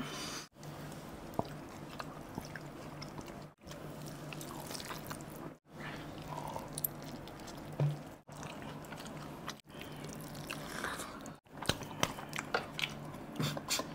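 Close-up eating sounds: biting into and chewing curry-coated chicken and fish by hand, with wet crackles and fingers working through curried rice on a steel plate. The sounds come in short stretches broken by several brief dropouts to silence, over a steady low hum.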